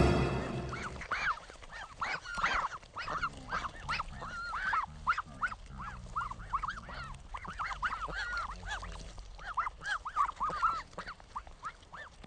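Ducklings peeping: many short chirps, each rising and falling, in quick succession from several birds at once. Dramatic music fades out in the first second.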